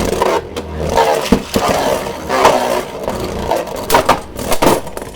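Two Beyblade Burst spinning tops, a 3D-printed Hero Samuraizor and a Slash Valkyrie, whirring and scraping in a plastic stadium with a string of sharp clacks as they collide.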